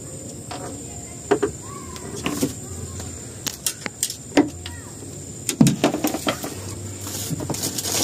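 Scattered clicks and knocks of fishing rod and tackle being handled in a small boat, busiest about five and a half seconds in.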